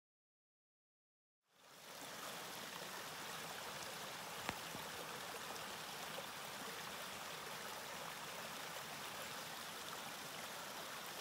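Small creek running over rocks: a steady rush of water that starts after about a second and a half of silence. A single brief click comes about four and a half seconds in.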